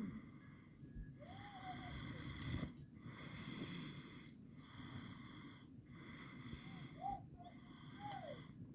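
Snoring: a run of noisy, wheezy snores repeating about every second and a half, with short gaps between them and now and then a brief whistling squeak.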